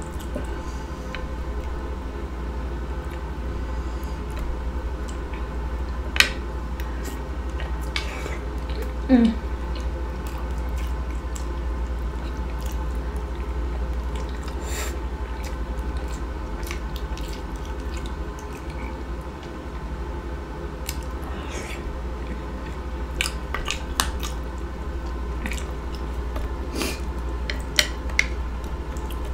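Close-miked chewing and lip smacking while eating a buttery seafood boil of green-lip mussels, with scattered sharp clicks over a steady low hum. About nine seconds in there is a short falling pitched sound.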